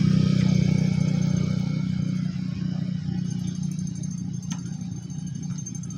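Small motor scooter engine running at an even pitch, loud at first and then fading steadily as it moves away.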